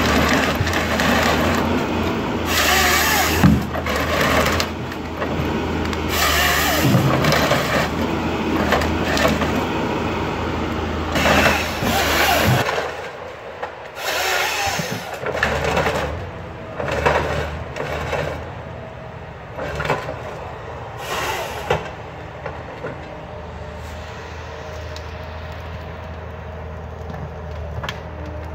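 Forestry harvester at work: a LogMax 6000B harvester head's hydraulic saw, fitted with a JPS R5500 and 3/4-inch chain conversion kit, bucking logs in a series of short cutting bursts over the steady drone of the machine's diesel engine. About halfway through, the engine drone drops away and the cutting and handling noises become quieter and further apart.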